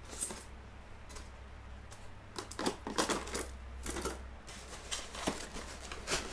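Handling of the drone kit's plastic parts and packaging: irregular clicks, taps and rustles, busiest in the middle and near the end, over a steady low hum.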